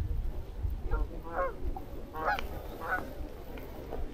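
A flock of Canada geese honking in flight: a string of short honks at uneven intervals, roughly one or two a second, over a low rumble.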